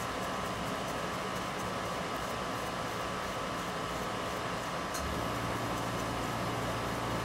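A steady whirring noise with a constant tone runs throughout, with faint light scratches from a stiff-bristled brush picking at paint on a plastic model. A low hum steps up about five seconds in.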